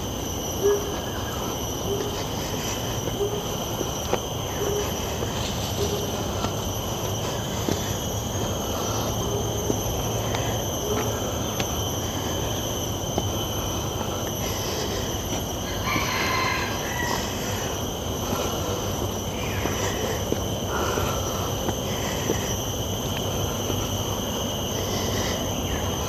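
Steady high-pitched insect chorus of tropical rainforest, an unbroken whine with overtones. Footsteps climb stone steps beneath it, at a regular pace in the first several seconds.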